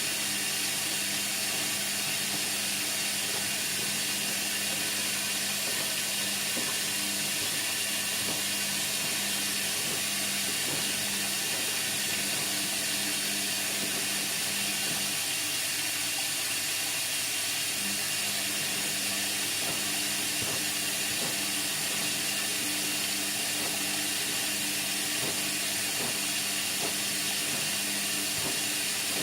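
Indesit MTWC71252WUK washing machine running mid-cycle on Cotton 30: a steady hiss with a low motor hum that stops for a couple of seconds about halfway through, then comes back.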